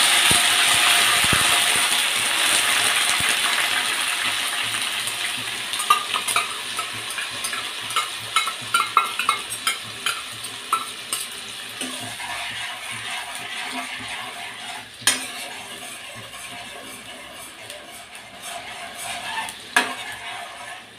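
Wet ground onion paste dropped into hot oil in a kadhai, sizzling loudly at first and then fading steadily as it fries. A metal spoon stirs it, clicking and knocking against the pan from several seconds in.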